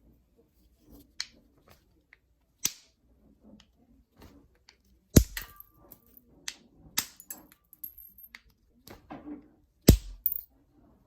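Novaculite being flintknapped: a string of sharp clicks and snaps as flakes are taken off the stone, the loudest about two and a half, five, seven and ten seconds in, with lighter ticks between.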